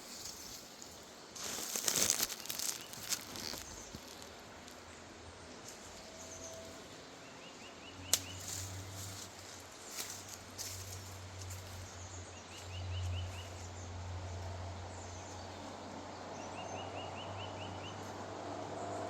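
Steady rush of a woodland river, with a small bird giving a short, rapid trill three times. A few rustles and clicks come near the start, and a low hum comes in about halfway and grows louder toward the end.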